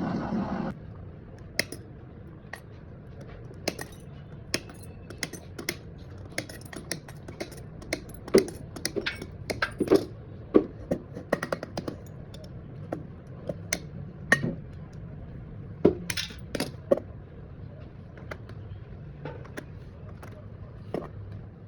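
A steady machine noise cuts off abruptly within the first second, followed by scattered sharp clicks, clinks and taps of hard metal and plastic pieces being handled and knocked together.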